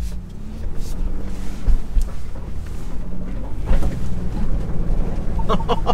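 2021 Ford Bronco Wildtrak's engine pulling at low speed, heard from inside the cabin as a steady low rumble that grows louder, while Trail Turn Assist holds the inside rear wheel and the truck pivots around a very tight turn.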